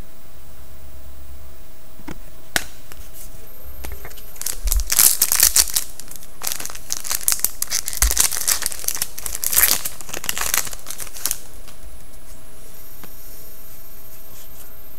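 Foil wrapper of a 2011-12 SP Authentic hockey card pack being torn open and crinkled by hand, in crackly bursts from about four and a half seconds in until about eleven seconds in.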